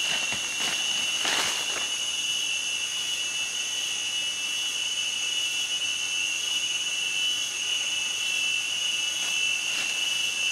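Steady, high-pitched droning of forest insects, unbroken throughout. In the first two seconds a wooden digging stick strikes and scrapes loose soil a few times.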